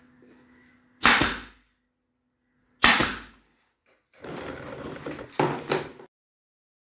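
Pneumatic staple gun firing twice, about two seconds apart, each shot a sharp crack that fades over half a second, as staples are driven into a motorcycle seat cover and base. Then about two seconds of rustling and handling noise with a couple of knocks as the gun is laid on the table.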